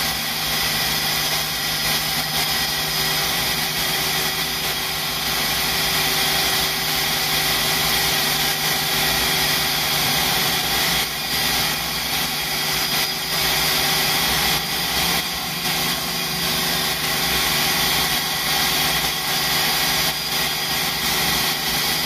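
Countertop food processor motor running steadily at high speed, grinding chunks of raw cassava fed in by hand into a fine mash.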